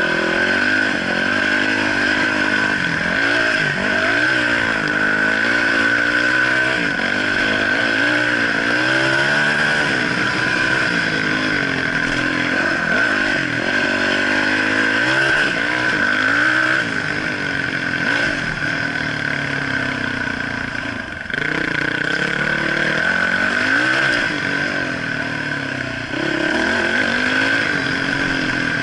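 Trail motorcycle engine revving up and down as the bike rides a dirt track, the pitch rising and falling with the throttle, over a steady high whine. The throttle is briefly shut off about two-thirds of the way through.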